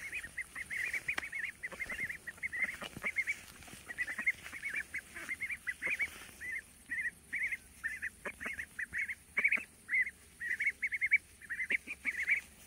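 A small flock of young Indian Runner ducks calling almost without pause: quick runs of short, high calls, with scattered soft clicks.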